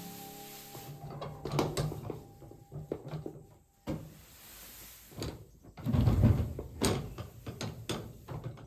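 A door being handled: scattered knocks and clatter, loudest about six seconds in.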